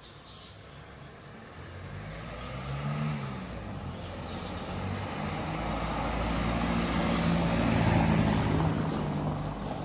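A motor vehicle's engine running nearby, a low hum that grows louder over several seconds, is loudest about eight seconds in, then eases off slightly.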